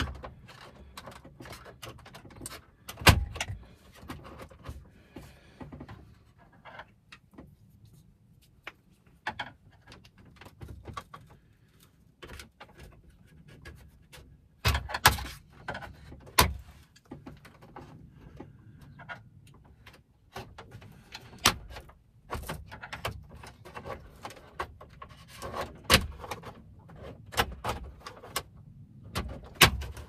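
Plastic console trim being pried at with a plastic trim tool and a screwdriver: irregular clicks, scrapes and small knocks as the handbrake switch unit is levered loose, with a few sharper snaps of plastic clips along the way.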